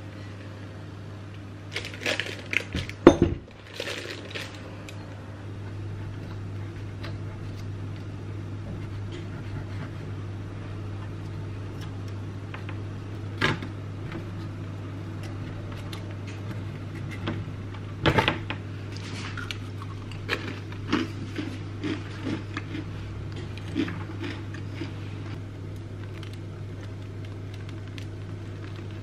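Baking prep sounds: a spatula knocking and scraping against a glass bowl as batter is scraped into a piping bag, loudest about two to four seconds in, then scattered clicks and taps of a knife against a metal cake ring as a sponge cake is trimmed. A steady low hum runs underneath.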